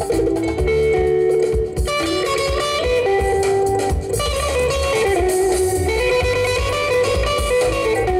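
Live band music led by electric guitar playing a stepping melody over a steady low beat.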